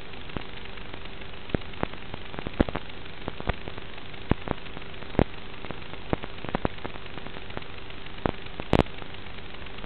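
Steady static hiss with a faint steady hum, broken by irregular sharp crackling clicks and a louder double pop near the end: noise on the audio track of an analog FPV video recording.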